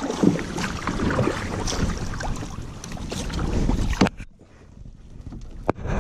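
A canoe being paddled: water splashing and the paddle and hull knocking, with wind buffeting the microphone. A sharp knock comes about four seconds in, after which it goes much quieter, with only a few clicks.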